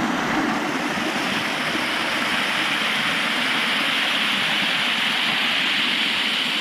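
Small waterfall in a rocky desert canyon, water pouring and splashing steadily close by.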